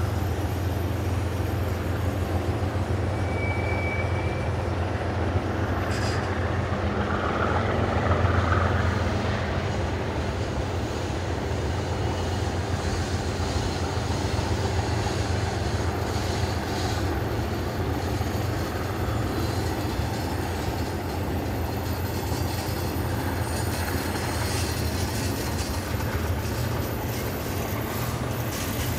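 BNSF domestic intermodal train's cars rolling past, a steady low rumble of wheels on rail. There is a brief high squeal about four seconds in and a sharp click about six seconds in.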